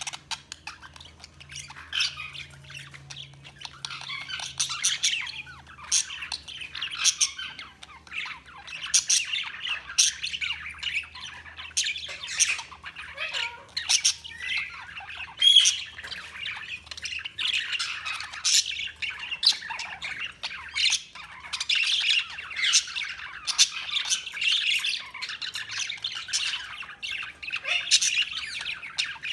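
Budgerigars chirping and squawking constantly, a busy chatter of overlapping calls with frequent sharp, loud squawks. A faint low hum lies underneath.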